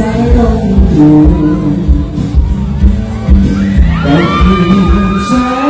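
Male singer singing live into a handheld microphone over amplified pop backing music with a steady bass beat, holding one long note near the end.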